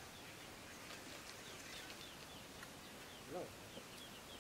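Faint outdoor ambience of small birds chirping, many quick downward chirps repeating. One short, lower rising-and-falling call about three seconds in.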